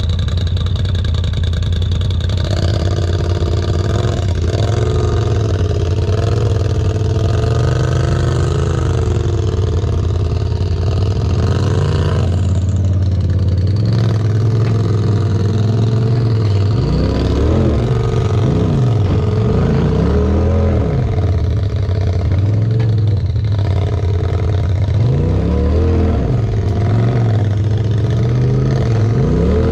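Polaris RZR side-by-side engine idling steadily, then from about halfway through revving up and down again and again in short rises and falls while crawling over rocks.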